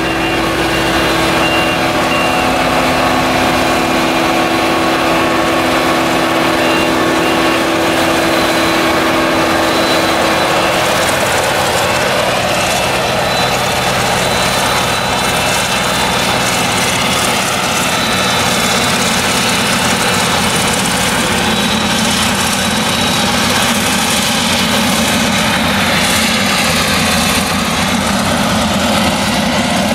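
Claas Jaguar 970 forage harvester's MAN V8 diesel running under load while chopping maize: a steady, heavy drone whose even hum turns rougher about ten seconds in as the machine moves away.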